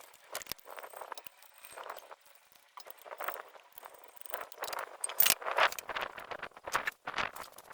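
Hand tools and metal parts clinking and scraping in quick, irregular knocks, busier and louder in the second half.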